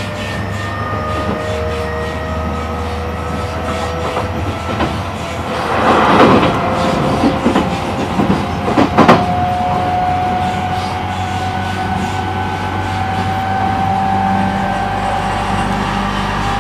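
E531 series electric train running and accelerating, heard from inside a motor car: the inverter-driven traction motors give a whine of several tones that slowly rise in pitch over the rumble of the wheels on the rails. A loud rush and clatter comes about six seconds in and a sharp knock about three seconds later.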